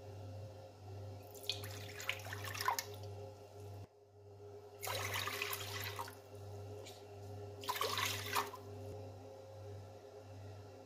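Warm milk poured from a glass tumbler into a glass mixing bowl, splashing into the growing pool: three separate pours, each a second or so long.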